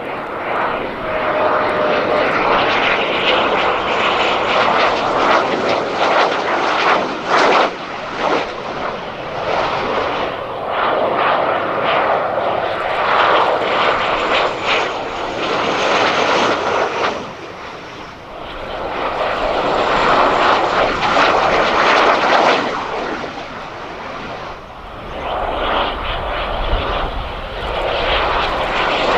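Jet engine noise from Northrop F-5E Tiger II fighters, each with twin turbojets, flying low on landing approach with gear down. The loud rushing sound swells and fades three times as the jets pass.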